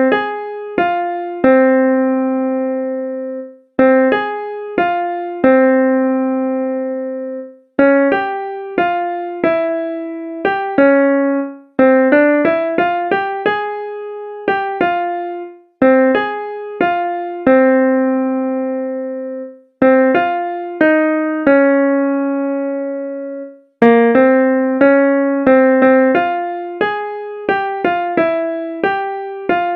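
Solo keyboard music, a slow, simple piano-like melody played in phrases about four seconds long, each ending on a held note that fades before the next phrase begins.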